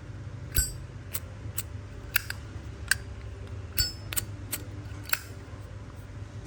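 Brass Zippo lighters' hinged lids being flicked open and snapped shut: about nine sharp metallic clicks, several with a brief bright ring. It is the lid 'sound' that the seller calls very nice on these lighters.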